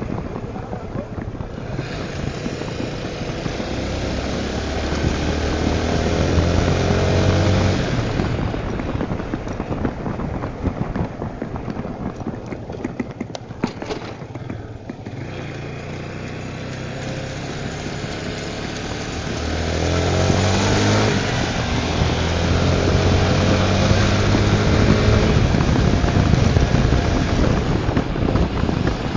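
Tornado 250 motorcycle's single-cylinder four-stroke engine running under way. It rises in pitch as it accelerates from about 3 to 8 seconds in, drops back and runs lower through the middle, then climbs again from about 19 seconds. A steady rushing noise lies over it throughout.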